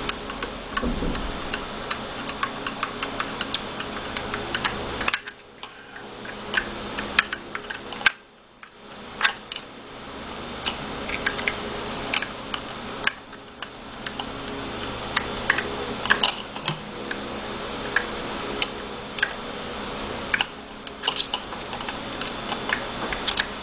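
Irregular small clicks and taps of a screwdriver tightening a screw into the rifle's grip, over a steady background hum.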